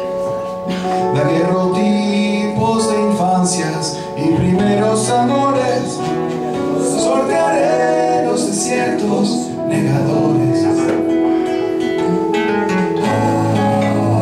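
Live song: a man singing with classical guitar and keyboard accompaniment, the voice coming in about a second in over sustained keyboard chords.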